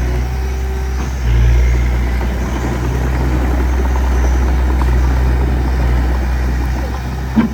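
Diesel engine of a small bulldozer or dump truck running steadily, getting louder about a second in as it takes more load, with one sharp click near the end.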